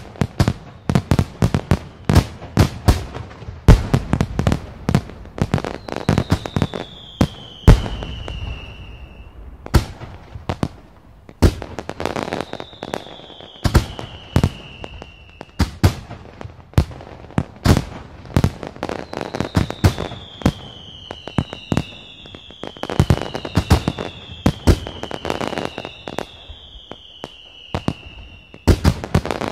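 Fireworks going off: an irregular run of sharp bangs, several close together. From about six seconds in, whistling fireworks add long whistles that fall in pitch, several of them overlapping near the end.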